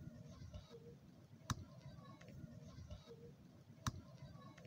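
Two sharp, short clicks about two and a half seconds apart over a faint background hiss.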